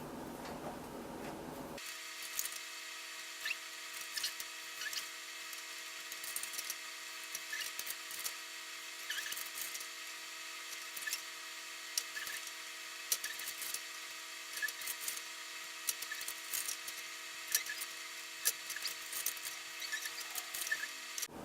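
Egg roll wrappers being cut in half: irregular sharp snips and clicks, over a steady hum of several tones.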